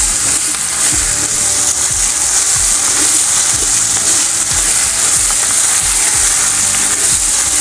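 Vermicelli and chopped dried dates sizzling steadily as they are fried in a steel pot, with a spatula stirring and scraping through them.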